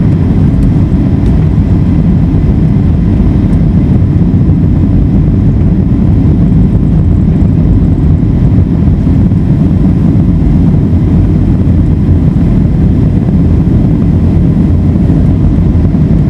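Boeing 757 cabin noise as the airliner rolls along the ground after a night landing: a loud, steady low rumble from the engines and the wheels on the pavement.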